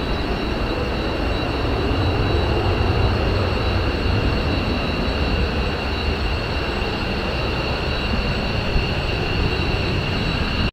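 Airbus A321-211 airliner's twin CFM56-5B turbofan engines at climb thrust just after takeoff: a steady jet rumble heard from the ground as the aircraft climbs away.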